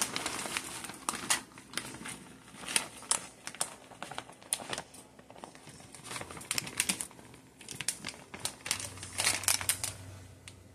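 Plastic bag of shredded cheese crinkling on and off as it is tipped and shaken to sprinkle cheese over the pan.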